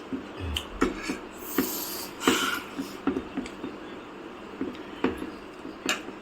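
Eating at a table: a string of short, irregular knocks and clicks from utensils against dishes, with a brief hissing rustle about two seconds in.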